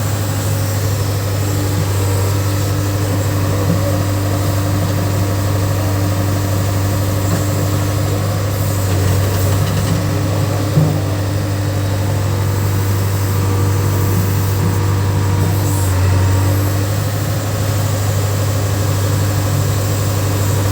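JCB 3DX backhoe loader's diesel engine running steadily with a deep, even hum, and one short knock about eleven seconds in.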